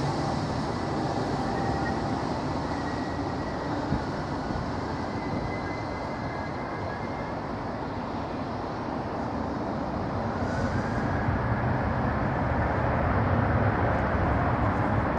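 Airbus A380's four Rolls-Royce Trent 970 turbofans running at taxi power as the airliner rolls slowly along the ground: a steady rumble with a faint high whine, growing louder over the last few seconds.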